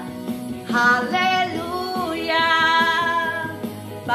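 A woman singing a praise song over backing music, holding a long drawn-out "Haleluya" that begins about a second in.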